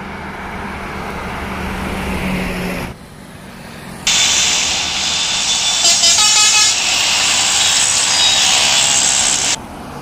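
Highway traffic with a truck passing, its engine a low drone for the first three seconds. After a cut, louder traffic noise with a truck horn sounding briefly about six seconds in.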